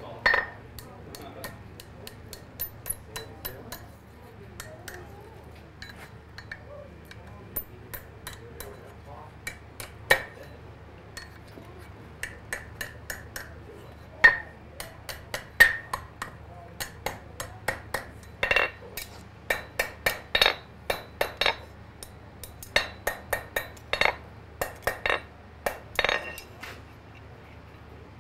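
Blacksmith's hand hammer striking red-hot iron on the horn of an anvil while bending a hook: sharp, ringing metal-on-metal blows in runs of quick strikes with short pauses between, busiest in the second half.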